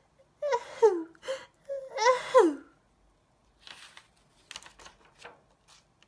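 A woman voicing the flea's little mock cough, 'a-heh! a-heh!', in a high-pitched, falling voice, followed about three and a half seconds in by the soft rustle and clicks of a picture-book page being turned.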